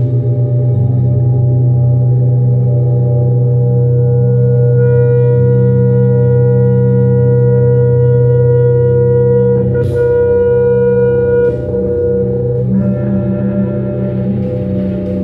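Live electronic drone music: layered, sustained tones that hold steady, with a higher cluster of tones entering about five seconds in, a sharp click near ten seconds, and the texture shifting to a pulsing lower tone a couple of seconds later.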